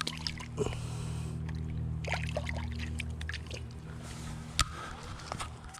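A steady low motor hum, with scattered clicks and knocks over it.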